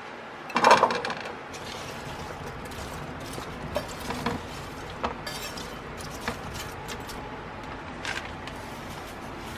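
Kitchen handling sounds: a rattling clatter about a second in, then scattered light clicks and knocks over a steady hiss.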